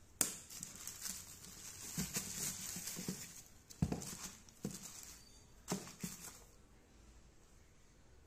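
Unboxing handling noise: a plastic mailer bag rustling as the sandals and a paper leaflet are moved about, with a few sharp taps in between.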